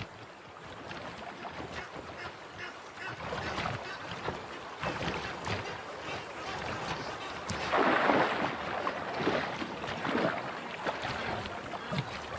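Water splashing and sloshing as a large crocodile moves in the shallows with a hippo carcass in its jaws, with a loud splash about eight seconds in.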